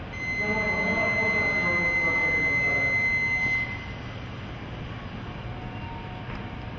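A steady, high electronic buzzer tone, held for about three and a half seconds and then cut off, over the steady background noise of a railway station platform.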